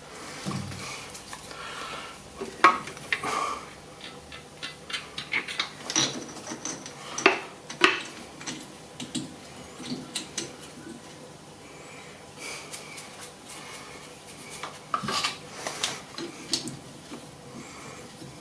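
Scattered metallic clinks, taps and scrapes of steel hand tools and tooling being handled at a metal lathe, over a faint steady hum.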